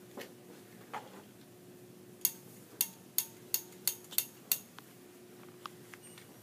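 Quick run of sharp metallic clicks, about seven in two seconds, from a gravity-feed steam iron's steam trigger being pressed repeatedly while pressing wool. A steady low hum runs underneath.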